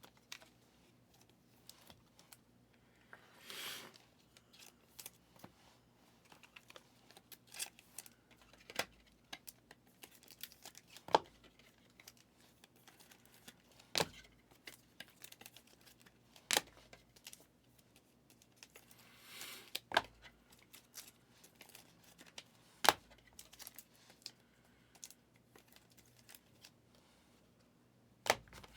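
Trading cards being handled and flipped through one by one: faint, scattered clicks and snaps of card stock, with a brief rustle of crinkling wrapper or sleeve plastic twice.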